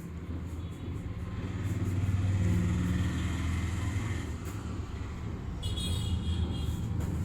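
Steady low rumble of background road traffic, louder in the middle, with a brief high-pitched tone about six seconds in.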